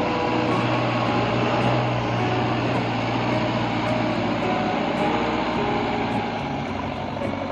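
A vehicle engine running, a steady low drone that fades away about four and a half seconds in, under a dense steady noise.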